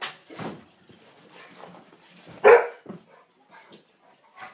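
Two dogs at play: one loud, sharp bark about two and a half seconds in, with a scatter of quieter short dog noises before and after it.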